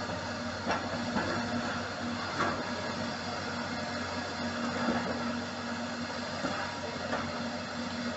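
Long-reach demolition excavator running steadily at a building, with a few scattered cracks and knocks of concrete breaking and rubble falling, over a steady hiss.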